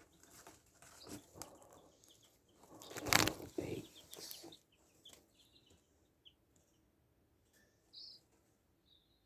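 Young chickens being handled: rustling and a brief flurry of flapping wings about three seconds in, with short high peeps scattered through.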